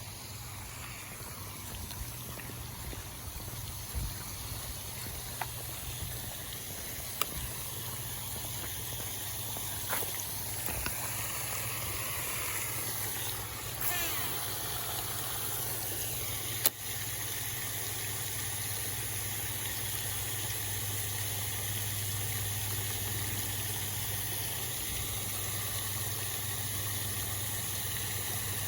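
A steady low mechanical hum, like a motor running at a distance, under a high hiss, with a few sharp clicks scattered through it and a louder click about seventeen seconds in.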